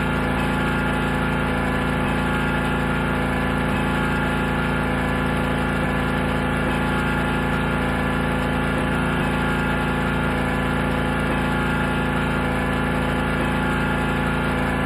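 Gasoline-powered pressure washer engine running steadily at constant speed.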